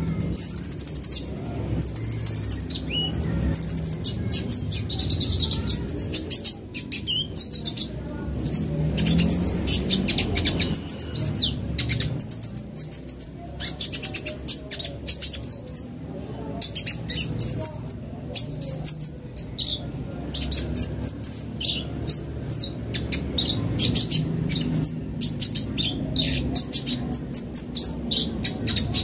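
Male van Hasselt's (purple-throated) sunbird singing: dense runs of rapid, high-pitched chirps, trills and quick sweeping notes, broken by short pauses.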